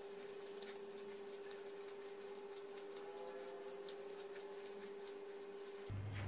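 Hands kneading soft, sticky yeast dough on a plastic tablecloth, butter being worked in: faint, irregular ticking and crackling as the dough is pressed and peeled off the surface. A steady faint hum runs underneath and stops just before the end.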